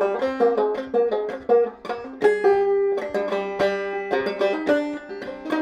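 Five-string banjo played clawhammer style: a run of quick plucked melody notes, then from about two seconds in, slower notes left to ring between struck chords.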